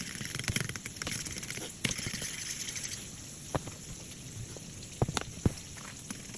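Food sizzling and crackling in a hot frying pan, with a few sharp clicks about two seconds in and again near the end.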